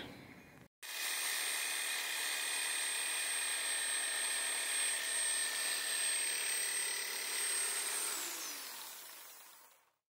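Electric jigsaw cutting a thin aluminium sheet. It starts about a second in, runs steadily with a high whine, then winds down near the end with the whine falling in pitch.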